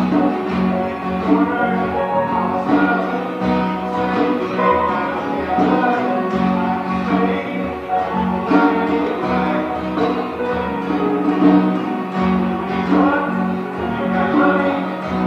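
Background music led by guitar, with bowed strings.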